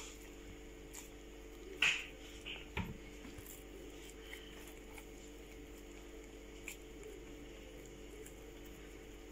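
Oiled hands squeezing and pinching soft, sticky pastry dough into small balls, making faint squelching sounds, with a few sharp clicks (the loudest about two seconds in), over a steady low hum.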